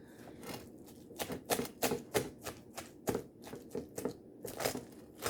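A utensil stirring a taco salad in a bowl, making an irregular run of sharp clicks and taps, about two or three a second, as it knocks against the bowl and the tortilla chips.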